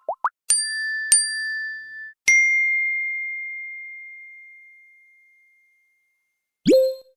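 Phone notification chimes. A short rising blip, then two quick bell-like dings, then a single higher ding that rings out and fades over a few seconds. After a pause, another notification tone sweeps upward near the end.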